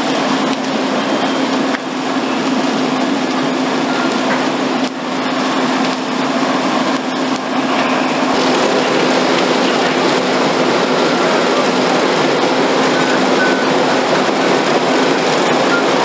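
Fire apparatus pumping: a steady engine drone under the broad rush of hose streams and the burning building. The noise grows a little fuller about halfway through.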